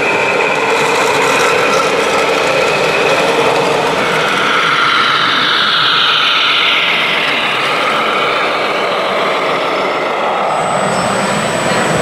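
Radio-controlled scale model trucks and construction machines running: electric motors and gearboxes whining, the pitch gliding up and down, over a steady mechanical din.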